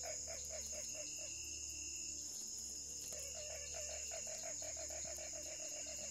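Night chorus of insects: a steady high-pitched trill like crickets, with a low pulsing animal call repeating about six times a second that breaks off about a second and a half in and starts again about three seconds in.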